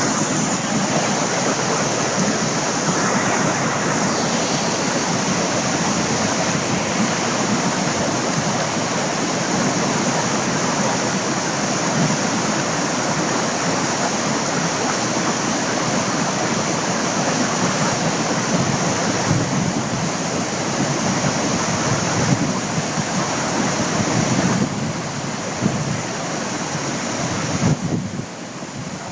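Small brook in flood, brown water rushing fast and churning along its channel with a steady loud rush, the stream close to overflowing its banks. The rush drops a little near the end.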